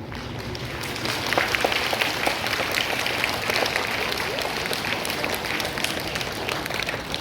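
A crowd of students applauding. The clapping builds over the first second, then holds steady as dense, many-handed applause.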